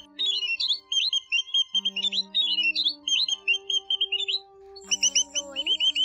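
White-headed munias calling in fast runs of short, high chirps, broken by short lulls about a second in and about four seconds in. Steady low humming tones run underneath.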